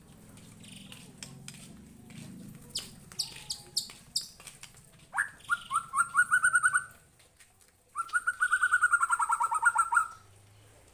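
White-rumped shama singing: a few sharp, quickly falling whistles, then two rapid trills of repeated notes, the second longer and the loudest, about ten notes a second.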